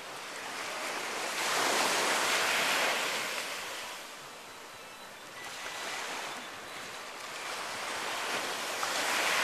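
Ocean surf washing onto the beach, swelling loudest about a second and a half in, easing off, then building again near the end.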